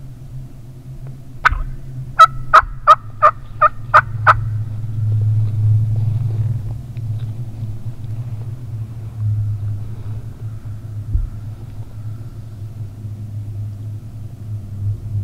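A series of loud turkey yelps: a single one about a second and a half in, then seven more in an even run at about three a second, over a steady low hum.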